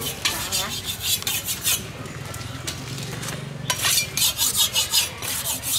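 A knife blade being sharpened with quick scraping strokes against a flat steel bar, several strokes a second, in two runs of about a second and a half each.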